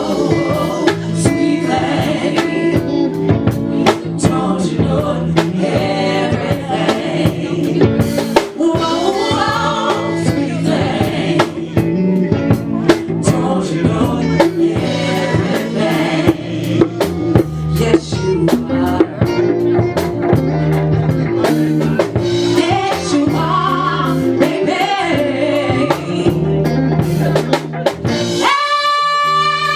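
Live band playing with a lead vocal over drum kit, bass and keyboard. Near the end the band drops out, leaving one held high note.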